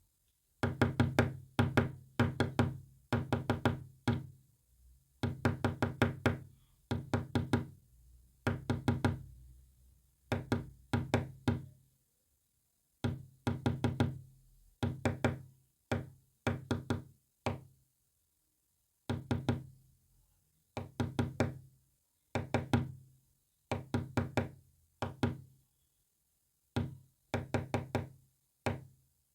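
Knocking in quick groups of several knocks, with short pauses between the groups, spelling out a message in Morse code.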